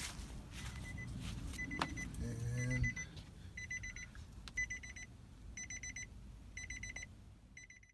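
A car's electronic warning beeper sounding a high-pitched beep over and over, quicker and fainter at first, then settling to one short beep about once a second. There is a click and a brief low hum about two seconds in.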